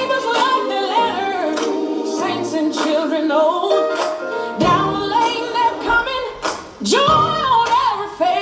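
A class of young children singing a song together, with a deeper musical accompaniment coming in about halfway through.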